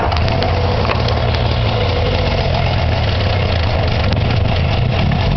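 Arctic Cat Puma 340 snowmobile's two-stroke engine running steadily on choke just after a cold start. The exhaust has been welded to cure a leak.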